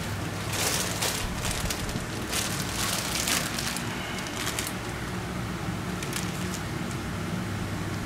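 Large fabric shears cutting through a thin plastic (nylon) bag, showing how sharp the blades are, with crinkling and rustling in several irregular bursts. A steady low hum runs underneath.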